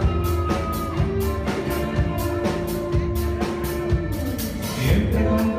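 Background music with a steady drum beat of about two hits a second under long held notes, one of which slides downward near the end.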